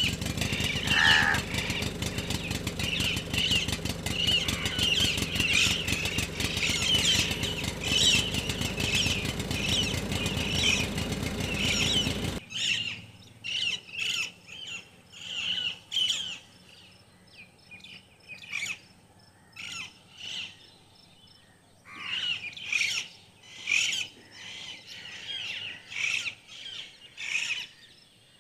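An engine runs with a fast, even chug and cuts off abruptly about twelve seconds in. Birds chirp throughout, and after the cut only their chirps are heard.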